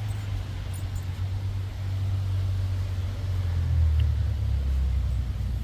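An engine idling: a steady low rumble that gets a little louder about two seconds in.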